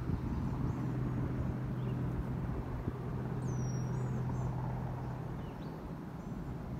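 Boeing AH-64 Apache helicopter far off over the river, a steady low drone that fades a little after about five seconds, with songbirds chirping now and then.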